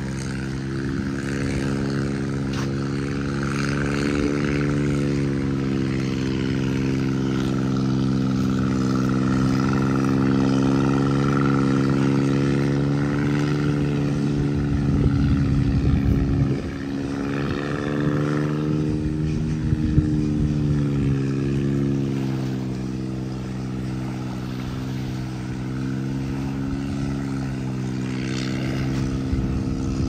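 A motor engine running steadily with a low hum, its pitch wavering slightly now and then.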